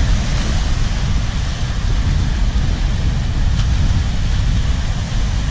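Sea waves breaking and washing over shoreline rocks, a steady loud rush, with wind buffeting the microphone as a heavy low rumble.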